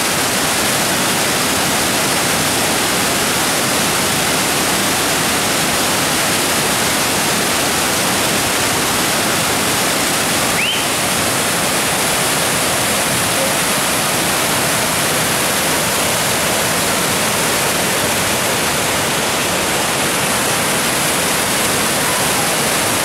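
Cascade Creek's waterfall in heavy spring flow, pouring over granite boulders: a loud, steady rush of water.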